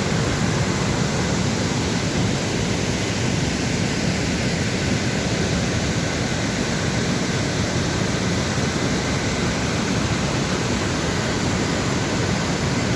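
Steady, loud rush of a waterfall, an even roar of falling water with no break or change.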